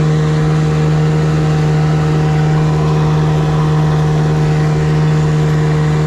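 A boat's outboard motor running steadily at one constant pitch, with a hiss of wind and water over it.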